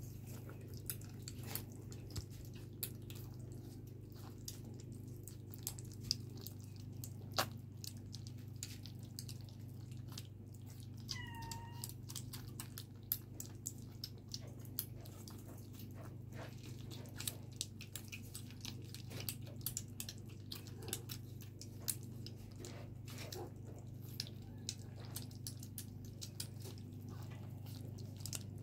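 Kittens eating wet cat food from plastic bowls: a steady run of small wet smacking and lapping clicks. One short kitten mew about eleven seconds in, over a steady low hum.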